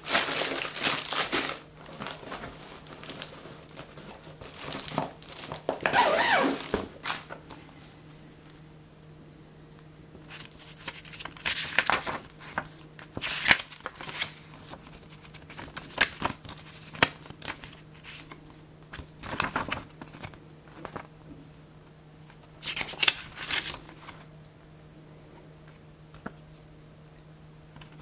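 Clear plastic wrapping crinkling as a paper instruction manual is handled, then the booklet's paper pages rustling as they are unfolded and turned, in separate short bursts with quiet gaps between.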